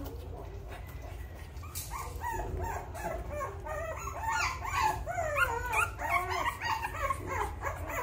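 Three-week-old American bully puppies whimpering and yelping in many short, rising-and-falling cries. The cries start about two seconds in and come thicker toward the end.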